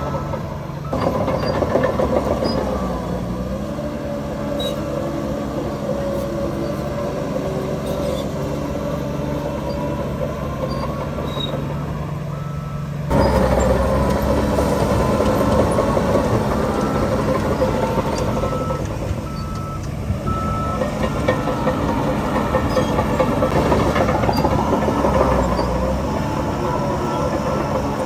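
Heavy diesel earthmoving machinery, bulldozer and dump truck, working under load, the engine pitch rising and falling as they rev. It jumps suddenly louder about a second in and again about halfway through. A short run of high repeated beeps comes in a little past the middle.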